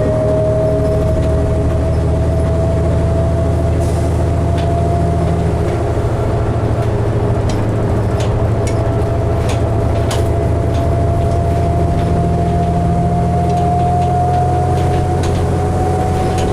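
Cabin sound of a 2012 New Flyer D60LFR articulated diesel bus under way: a steady low engine drone with a clear whine that rises slowly in pitch, and scattered light rattles.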